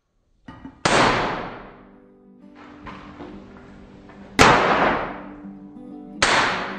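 Hand-hammer blows on white-hot iron on an anvil, of the kind used in forge welding: three heavy strikes spaced a couple of seconds apart, each with a long fading ring. Music plays underneath from about two seconds in.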